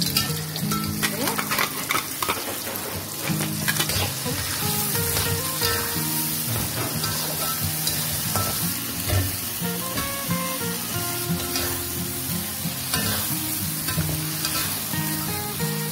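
Onions, whole spices and a ground paste sizzling in a steel wok as a metal spatula stirs and scrapes against the pan, with background music underneath.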